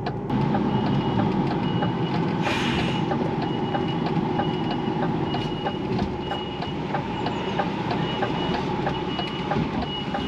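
Lorry cab with the diesel engine running, under a short high reversing-alarm beep that repeats about every half second, with faint regular ticking. A brief hiss of air comes about two and a half seconds in.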